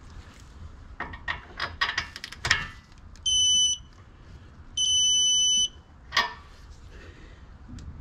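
A torque wrench's ratchet clicking several times as the ball joint bolt is pulled up, then the wrench's electronic beep sounding twice, a short beep and a longer one: the signal that the set torque has been reached.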